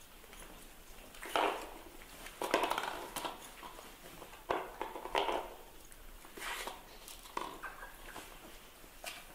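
A puppy chewing and crunching on a plastic bottle while a baby macaque scrambles over it, giving about six short, irregular scraping bursts. The strongest bursts come about a second and two and a half seconds in.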